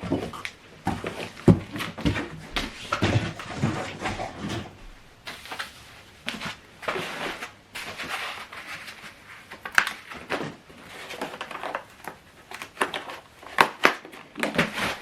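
Cardboard and paper packaging of a soundbar being handled and unpacked: irregular rustling with scattered taps and knocks.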